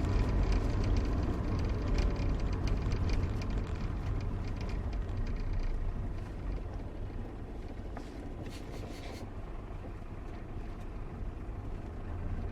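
Citroen BX 19RD estate's non-turbo diesel engine and tyres running steadily on the road, a low rumble that gets quieter from about halfway through.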